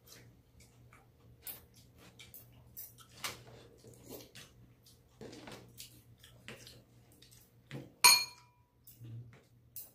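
Metal chopsticks and a spoon clicking against bowls and dishes during a meal, in scattered light taps. About eight seconds in, one much louder clink rings out briefly, like metal striking a stainless-steel bowl.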